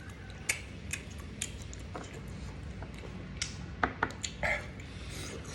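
Close-up chewing of grilled barbecue: scattered sharp wet clicks and crunches, several of them in a row a little past the middle, over a steady low hum.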